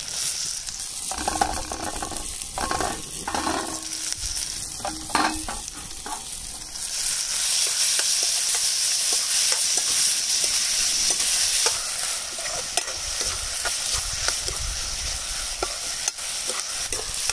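Chopped onion, garlic and tomato frying in hot oil in a kadhai, sizzling while a spatula stirs and scrapes the pan. The sizzle grows louder about seven seconds in.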